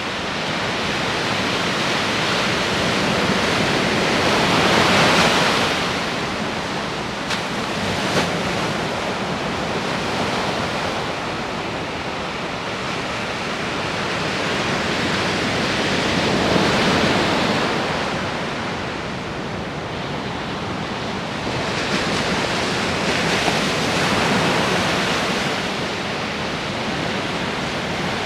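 Ocean surf: waves washing in and ebbing, the rush swelling louder a few seconds in, again past the middle, and near the end.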